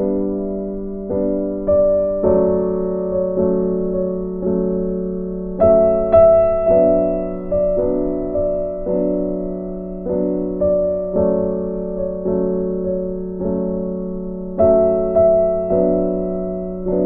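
Background piano music: single notes struck in a steady, unhurried rhythm about twice a second, each left to fade, over a sustained low note.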